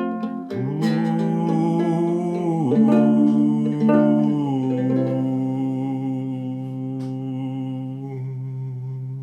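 Wordless humming of long held notes over a six-string guitalele. A few strummed chords open it, then a single sustained hummed tone runs on, dipping in pitch briefly about three seconds in, and stops abruptly at the end.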